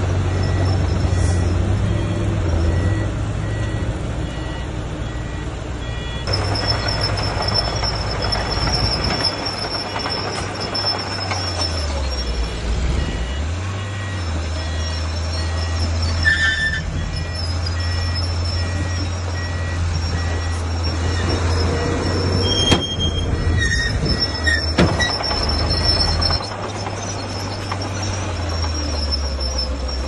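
Diesel engines of heavy earthmoving machinery, a bulldozer working with a dump truck, running steadily. The revs drop and pick up again about twelve seconds in. Two sharp knocks come about two seconds apart, around two-thirds of the way through.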